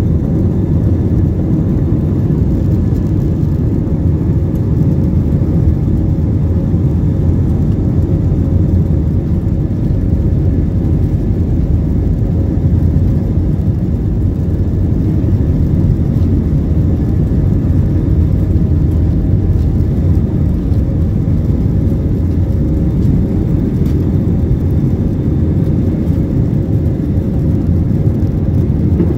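Airliner cabin noise heard from a seat beside the wing: a steady low rumble of the jet engines and airflow, with a faint even hum running through it.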